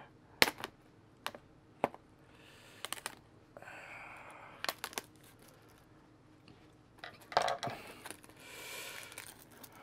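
Scattered sharp clicks and taps, with short stretches of crinkling, as the point of a pair of scissors and then fingertips pick at the plastic film sealed over the top of a firework cake to free the fuse beneath it. The loudest rustle comes about seven seconds in.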